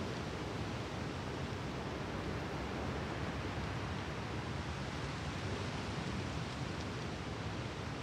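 Steady seashore ambience: surf washing as an even, unbroken hiss, with no separate wave breaks standing out.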